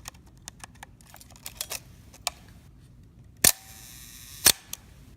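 Minolta SRT101 SLR being handled with light clicks, then its shutter released at a slow speed: a loud click, about a second of whirring from the slow-speed timing mechanism, and a second loud click as the shutter closes.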